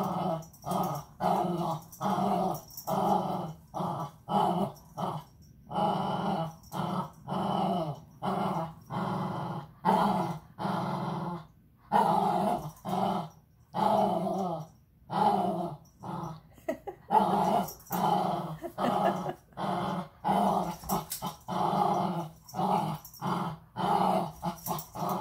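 Small dog play-growling while tugging a suction-cup rope toy with its teeth: a long run of short growls, one after another, about one or two a second.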